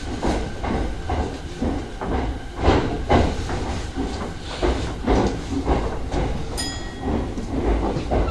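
Yokosuka Line electric train rolling slowly into an underground platform, heard from inside the driver's cab: a low rumble with irregular clacks and knocks from the wheels over the rails, and a brief high squeal about two-thirds of the way through.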